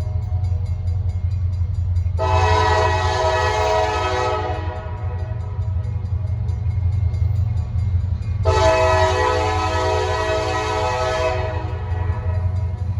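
Diesel locomotive air horn sounding two long chorded blasts, each about three seconds, over the steady low rumble of the locomotive engines as the train pulls past. The lead unit is a rebuilt EMD SD70MACe.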